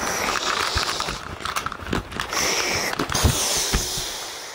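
Rustling and knocking of small plastic toy figures being shaken about on a blanket, with a few dull handling thumps.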